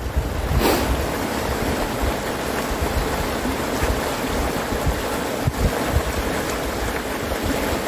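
River rapids rushing as a steady noise, with wind rumbling on the microphone.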